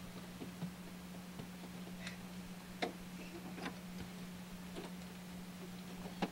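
Scattered faint clicks and small knocks, about half a dozen at irregular intervals, from someone moving about in a car's front seat. A steady low hum runs underneath.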